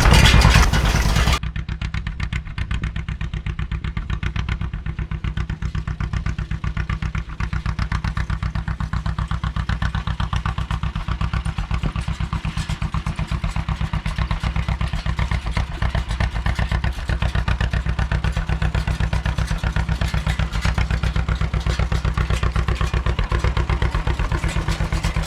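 Tractor engine idling with a steady, fast firing pulse. It is louder for about the first second, then drops to a steady idle.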